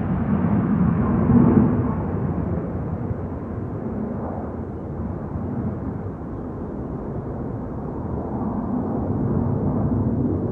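Fighter jet engine rumbling in an overflight, loudest about a second and a half in, then fading and growing duller as it draws away, with a slight swell again near the end.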